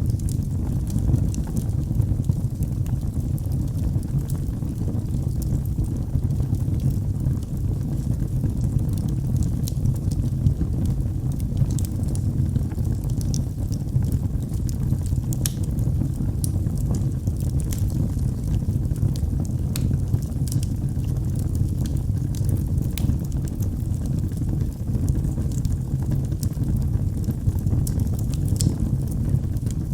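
Wood fire burning in a fireplace: a steady low rumble of the flames with scattered sharp crackles and pops throughout.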